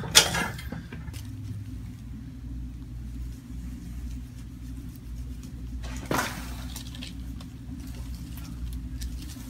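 A sharp crack from a chiropractic adjustment just after the start, over a steady low background hum; another brief, softer sound about six seconds in.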